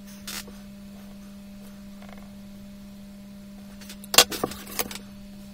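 Steady low hum with a short cluster of sharp clicks and knocks about four seconds in, from a plastic set square and drawing instruments being handled on the drawing sheet.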